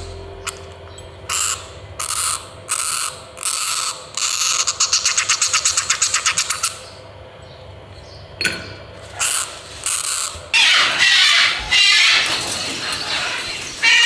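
A hand-reared parrot chick gives rapid, buzzing food-begging calls in short bursts while it is fed from a syringe. About ten seconds in, white cockatoos start loud, harsh calling, which covers everything else.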